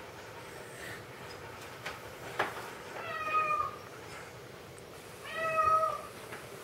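A toddler's two short, high, steady vocal calls, each under a second, with a single sharp click just before the first.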